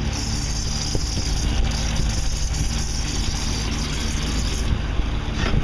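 Motorboat engine running steadily while the boat is under way, with a high hiss over it until near the end. There is a single sharp knock just before the end.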